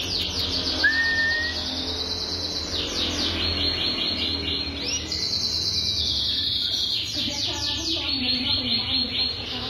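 Gibosso canary singing: long rapid trills of repeated high notes, each run shifting to a new pitch every second or two. One short rising whistle stands out about a second in.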